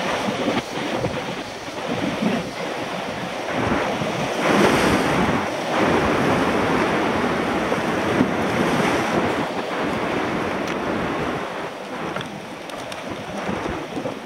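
Surf washing onto a beach, with wind buffeting the microphone. The wash swells up twice, about a third and about two thirds of the way through.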